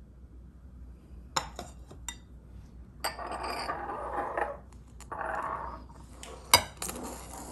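Glass dishes and cups clinking and knocking against each other and the counter, with two spells of steady rushing noise of about a second and a half each and a sharp knock about six and a half seconds in.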